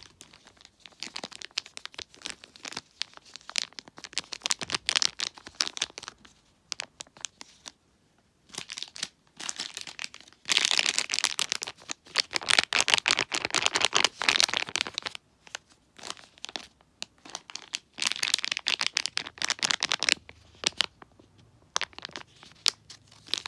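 Clear plastic wrappers around small squishy toys crinkling as they are handled, in bursts with short pauses, loudest in the middle.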